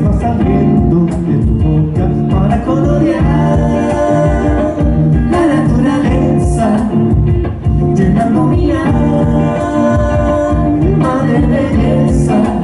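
Live band music with a male singer, guitars and a steady rhythm section.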